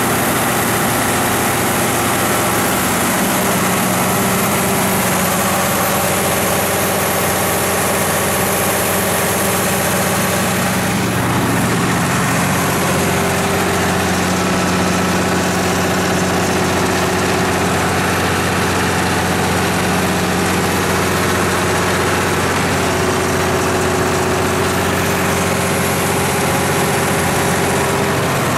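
Cummins 6CT8.3 inline six-cylinder diesel engine of a Cummins Onan 125 kW standby generator set running steadily at constant speed, with a deep even engine note and the hiss of its cooling fan and exhaust.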